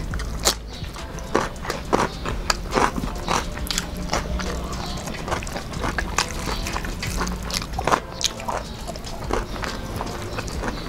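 Close-miked eating: crisp bites and chewing with wet mouth smacks, heard as many short sharp clicks at an uneven pace, over a steady low hum.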